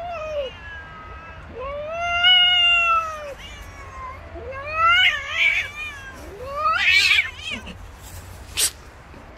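Cats yowling at each other over food: two long drawn-out wails in the first three seconds, then shorter, rougher yowls about five and seven seconds in. A single sharp click follows near the end.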